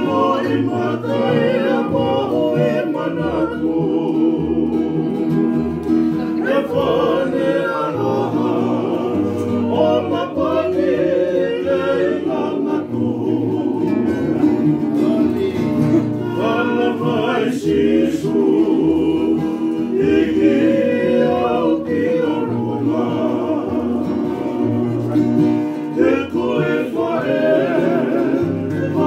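Men singing a Tongan devotional song together, accompanying themselves on two strummed acoustic guitars and a ukulele.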